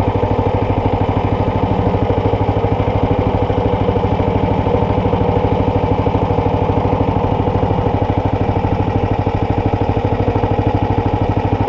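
Small fishing boat's engine running steadily at an even pace, with a fast, regular pulse of firing strokes that does not change.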